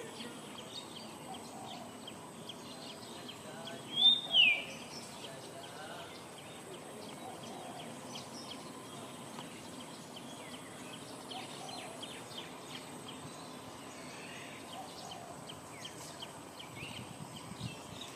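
Outdoor ambience with scattered short high chirps and faint distant voices. About four seconds in come two loud, high-pitched calls in quick succession, each falling in pitch.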